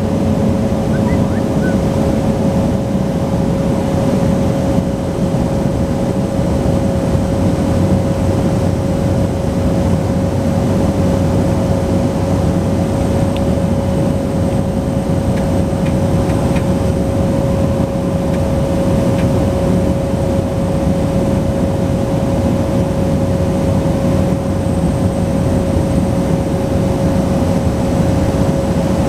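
Cessna 208 Caravan's single Pratt & Whitney PT6A turboprop heard inside the cockpit on final approach: a loud, steady drone of engine and propeller with a steady whining tone over it.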